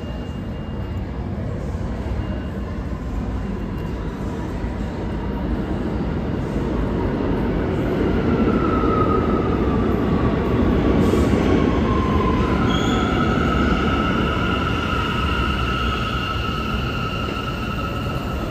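New York City subway train rolling into the station with a rumble that builds. From about halfway through the wheels squeal: first one high tone gliding down, then a steady high squeal.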